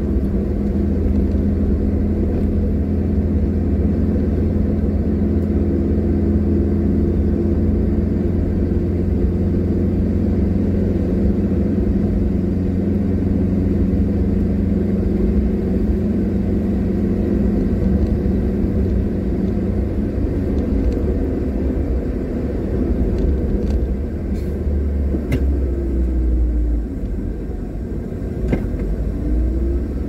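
Car driving along a road, heard from inside the cabin: a steady low rumble of engine and tyres with a steady engine hum. Near the end the engine note slides down and then back up as the car slows and picks up speed again.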